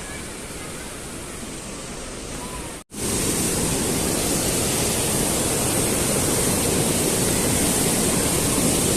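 Steady rushing of the gorge's stream and waterfalls. It breaks off for an instant about three seconds in and comes back noticeably louder.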